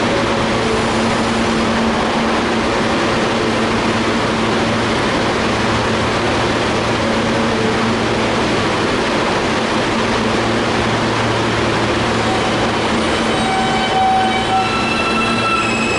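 R160 subway train standing at the platform with a steady low hum over loud station noise; about thirteen seconds in, its traction motors start a stepped, rising whine as it begins to pull out.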